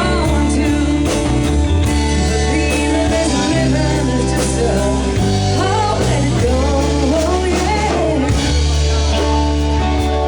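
Live rock-and-blues band playing with a lead singer: a voice sings over electric guitar, bass, drum kit and keyboard, with cymbals.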